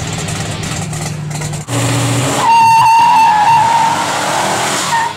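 A 1968 Dodge Charger's engine runs steadily through its exhaust. After a short break it is driven in a burnout: from about halfway a loud, steady, high-pitched tyre squeal sets in over the engine as the rear wheel spins and smokes.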